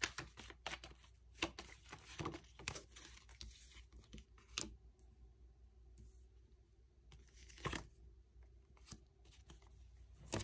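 Tarot cards being shuffled and handled: a quick run of soft snaps and flicks for the first few seconds, then a few single ones.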